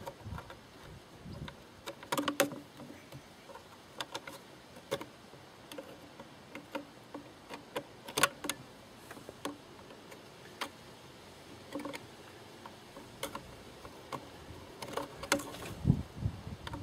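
Irregular clicks and light knocks of plastic air intake ducting and hose being handled and pushed into place on a Citroen C15 engine, with the engine off.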